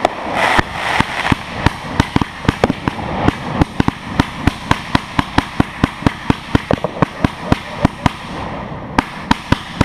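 Aerial fireworks going off in a rapid, steady string of sharp bangs, about three a second, with a brief lull near the end before the bangs start again.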